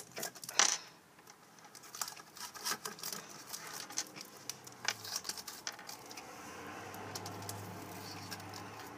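Small clicks, taps and crinkles of adhesive tape and a cardboard toilet-paper tube being handled by hand, with a sharper click under a second in. A low steady hum comes in about halfway through.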